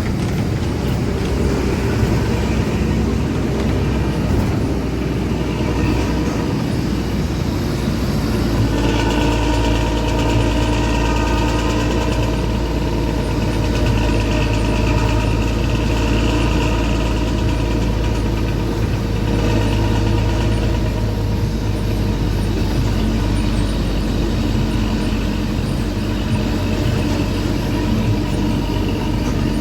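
Bus engine running through an aftermarket racing exhaust with a growling note ('ngorok'), heard from the rear seat inside the cabin: a steady low drone, with higher tones joining about nine seconds in.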